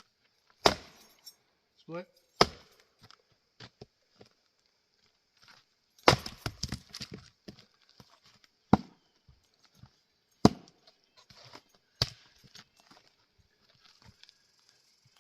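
Splitting axe striking Douglas fir rounds: about six sharp chops a couple of seconds apart, one of them followed by a second of clattering as the split pieces fall.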